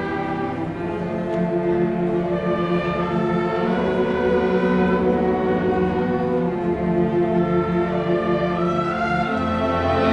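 Youth orchestra playing, with bowed strings (violins, cellos, double bass) and some woodwinds and brass, in long held notes that change every second or two.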